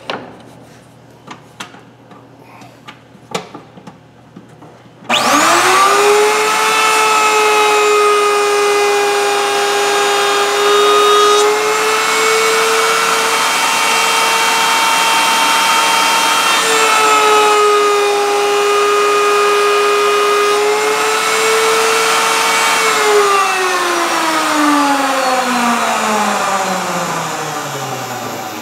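A few light knocks of wood being handled, then a table-mounted router switched on about five seconds in. It whines at full speed and its pitch sags twice as the wooden bar is fed through the radius bit. It is switched off near the end and winds down with a steadily falling pitch.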